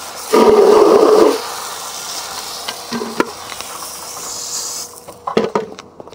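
Garden hose running, water splashing onto a concrete driveway as a steady hiss, with a much louder rush for about a second about half a second in. The water stops about five seconds in, followed by a few sharp knocks.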